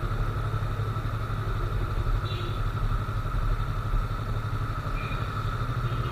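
Yamaha R3's parallel-twin engine running steadily at low revs with no revving, heard from the rider's seat on the moving motorcycle.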